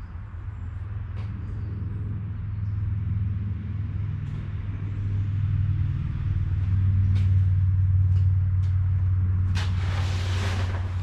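A deep, steady engine rumble that grows louder over several seconds and then eases slightly, followed by a burst of hiss about nine and a half seconds in.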